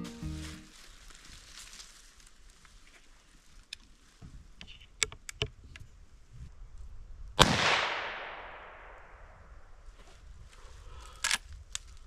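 A single rifle shot from a Henry H001M lever-action .22 WMR about seven seconds in, a sharp crack with its echo fading over about two seconds. A few light clicks and rustles come before and after it.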